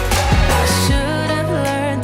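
Background pop music with a steady beat and a singing voice.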